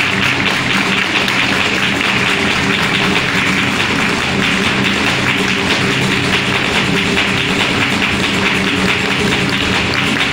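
Live flamenco: a dancer's heel-and-toe footwork (zapateado) tapping on the stage floor, with rhythmic palmas handclaps and a flamenco guitar playing, as a dense run of taps and claps over the guitar.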